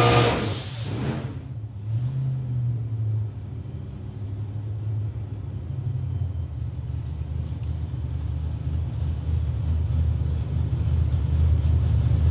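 427-cubic-inch LS V8 with a Whipple 3.0-litre supercharger, running on E85 on an engine dyno. The full-throttle pull cuts off within the first second, and the engine drops to a deep, steady idle that grows a little louder toward the end.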